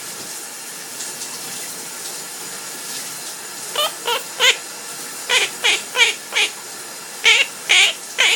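Steady hiss of a running shower; after about four seconds a pet parrot starts a run of about ten short, high calls, each sliding down in pitch.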